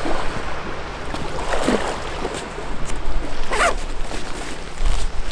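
Two short rasping rustles, about one and a half and three and a half seconds in, from clothing and gear handled close to the microphone, over a steady wash of sea waves.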